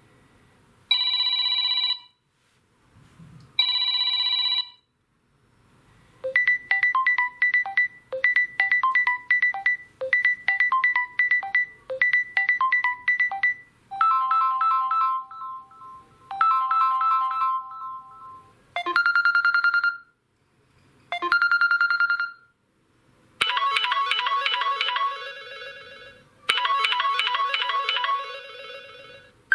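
Samsung Galaxy M01 stock ringtones playing one after another: short electronic melodies and chimes, each lasting one to several seconds, with brief gaps between them.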